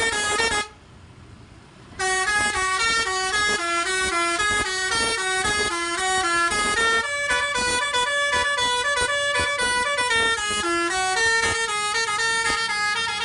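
Bus telolet horn: a bus's set of tuned air horns playing a quick tune of stepped notes. It breaks off briefly under a second in, then starts again with a longer melody.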